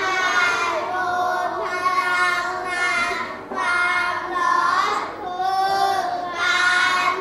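A class of young children reading a sentence aloud together in Thai, chanting in unison with slow, drawn-out syllables in phrases with short breaks.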